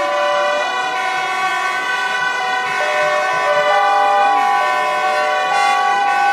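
Several vehicle air horns blowing long, overlapping blasts at different pitches, forming a dense, shifting chord as single horns start and stop.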